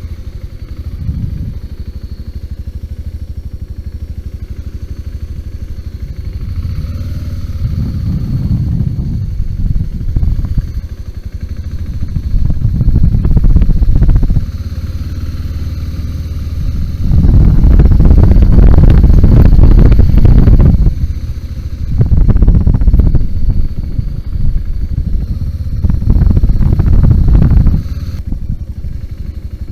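BMW G 650 GS single-cylinder motorcycle engine running at low revs while riding off-road, with repeated surges of throttle. The longest surge comes a little past halfway and lasts about four seconds.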